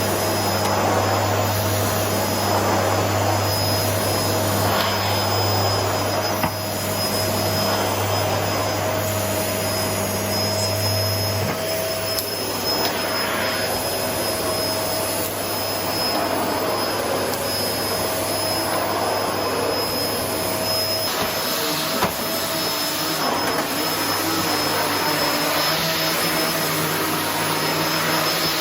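Paper-bag vacuum cleaner running steadily, its motor whine and suction hiss continuous, with a low hum dropping away about eleven seconds in and a couple of brief knocks.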